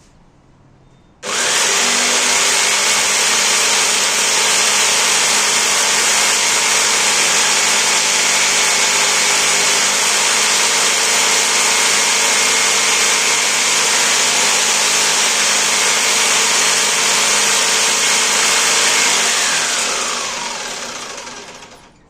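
Upturned electric jigsaw switched on about a second in, running very loud and steady as it slices Ceylon cinnamon sticks, then switched off near the end with its motor winding down in pitch.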